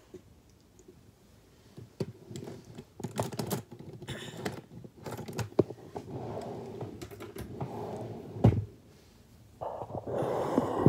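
Irregular clicking and tapping close to the phone, with a dull thump about eight and a half seconds in and louder rustling near the end.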